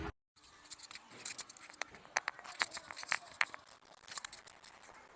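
Clicks, taps and rubbing from a wireless clip-on microphone being handled and fastened to clothing, picked up by the mic itself.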